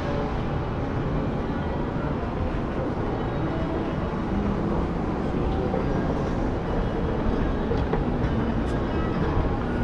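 Steady background noise inside a large shopping mall: a constant low rumble and hum with no distinct events.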